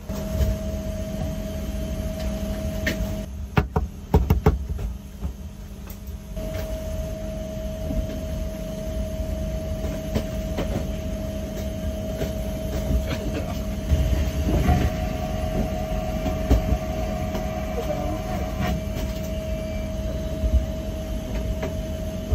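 Aircraft cabin noise: a steady low rumble with a constant hum. The hum cuts out for about three seconds near the start while several sharp clicks sound, then returns. Later there are smaller clicks and the rustle of paper towels being handled over a stainless-steel lavatory sink.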